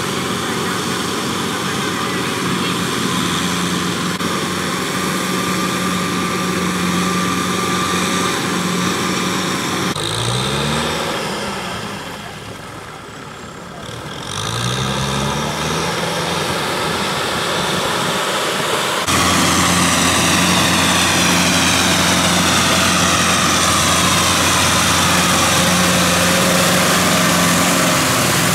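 Kubota M6040 tractor's diesel engine running steadily under load while its rear rotary tiller churns the mud of a flooded rice paddy. About ten seconds in, the engine note rises twice as it revs up. In the last third it is closer and louder.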